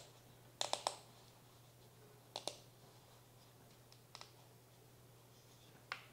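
Light clicks and taps of a small wooden box frame being handled and pressed in the fingers: three quick clicks about half a second in, two more near two and a half seconds, then single clicks near four and six seconds. A faint steady low hum lies underneath.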